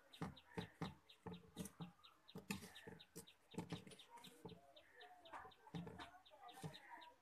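Faint rustling and light taps of fingers spreading and patting bread crumbs in a ceramic plate. Behind them, a quick, steady series of faint high chirps, about four a second.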